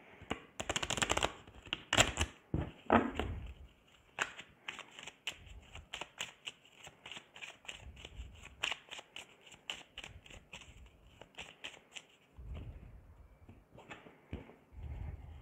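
A deck of playing cards being shuffled by hand: a dense run of rapid card clicks in the first few seconds, then many quicker, lighter card ticks. Near the end come a couple of low, soft thuds as cards are put down on the cloth-covered table.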